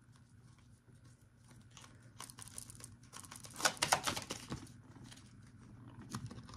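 Tarot cards being handled and laid out: a run of quick, papery clicks and rustles, densest and loudest about halfway through.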